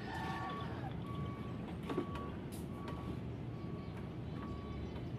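A vehicle's reversing alarm: a short high beep repeating every half second or so over a steady low engine rumble, with a single sharp knock about two seconds in.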